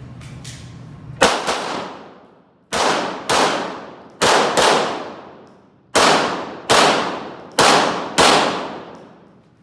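Pistol shots fired in quick pairs, ten shots in all, each ringing out with a long echo off the walls of an indoor range.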